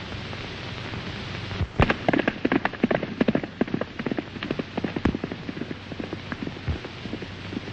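A horse's hooves galloping: a quick, irregular run of hoofbeats that starts suddenly about two seconds in, is loudest at first and then fades as the horse goes away. A steady hiss runs underneath.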